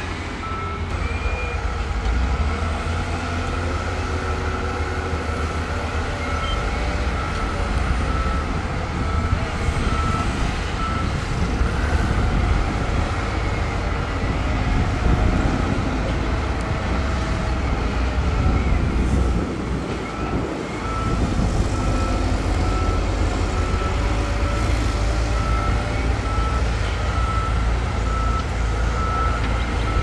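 Diesel earthmoving machinery running with a steady low rumble, while a reversing alarm beeps at an even pace for much of the time.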